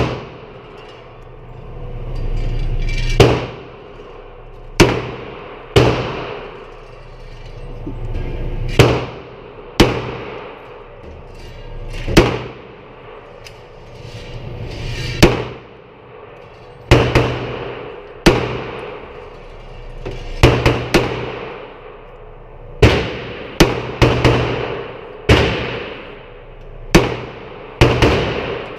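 Gunshots at a shooting range: about twenty sharp reports at irregular intervals, some coming close together in quick pairs or triplets, each trailing off in echo.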